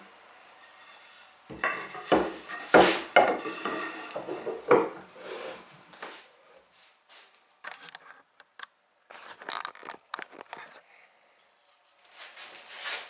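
Wooden knocks and clatter of a workpiece and tools being handled at a woodworking bench while the piece is set upright and clamped in a bench vise. The loudest knocks come in a cluster in the first half, then a few scattered clicks.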